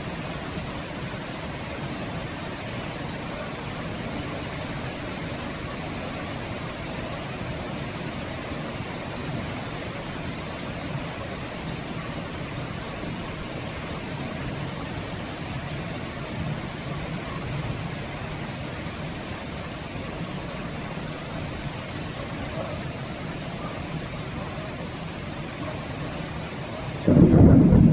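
Steady rain, an even rushing hiss with most weight low down. About a second before the end, a loud rumble of thunder breaks in suddenly.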